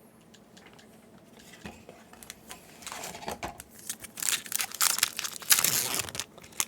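Foil Yu-Gi-Oh booster pack wrapper crinkling as it is handled and torn open. It starts softly about two seconds in and grows into loud, dense crackling over the last few seconds.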